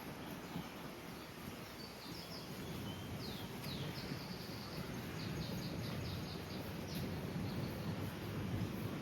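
Wind buffeting the microphone as a steady low rumble, while a small bird chirps repeatedly in short, high notes, most often in the middle of the stretch.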